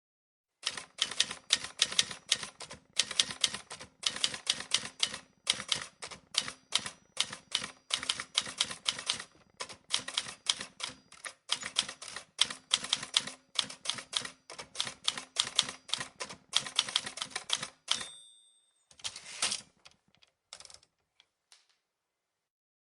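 Typewriter being typed on: rapid key strikes come in quick bursts with short pauses between them. Near the end a short bell-like ring sounds, followed by a brief rattle and a few last clicks.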